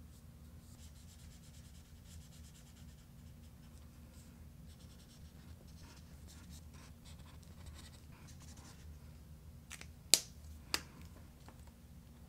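Felt-tip marker rubbing on paper in rapid short strokes as a drawing is coloured in. Two sharp clicks about ten seconds in.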